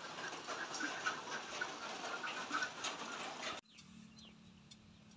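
Rain falling outdoors with birds calling through it. About three and a half seconds in, it cuts off suddenly to a much quieter outdoor ambience with a faint steady hum and sparse faint ticks.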